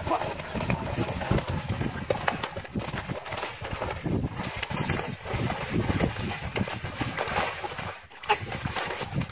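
Live fish thrashing and slapping against each other and the netting inside a wire-framed net trap as it is dragged over wet mud at the water's edge, making rapid, irregular knocks and slaps.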